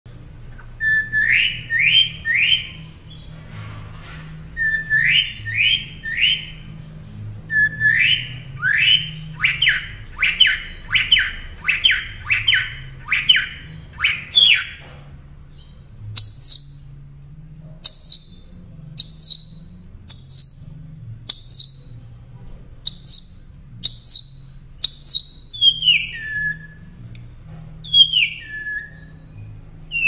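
Caged northern mockingbird singing, repeating each phrase several times before switching to a new one. First come groups of quick rising whistled notes. About halfway through it changes to a string of sharp notes falling from high to lower pitch, and near the end it gives a few slurred downward notes.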